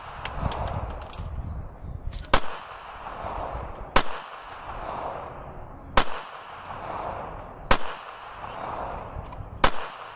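Ruger LC9 9mm pistol firing five single shots, spaced about two seconds apart, each followed by a short echo.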